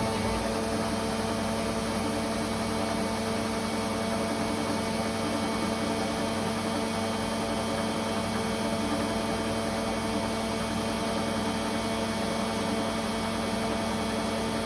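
Steady hum of industrial machinery running: a constant noisy drone with several fixed tones, unchanging throughout.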